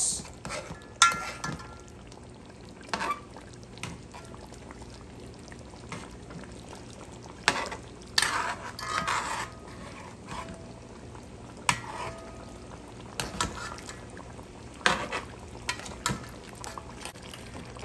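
Metal ladle scraping and knocking against a metal cooking pot as coconut curry sauce is scooped up and poured back over salmon fillets. The knocks come singly every few seconds, with a busier run of clatter a little past the middle.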